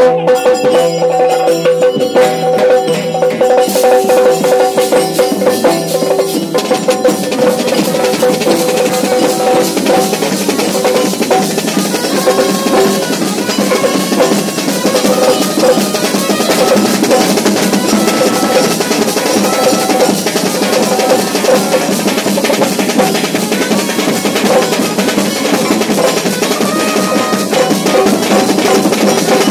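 Yakshagana background ensemble playing fast battle music: rapid chende and maddale drumming with a steady drone, which fades after the first several seconds.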